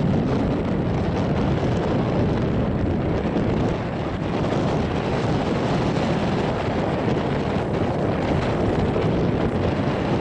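Steady wind rumbling on the camera microphone, a dense low noise that never lets up.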